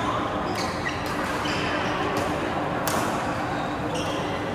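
Badminton rally: rackets striking the shuttlecock in a sharp hit about once a second, five in all, the loudest near the middle, over a steady background murmur in a large hall.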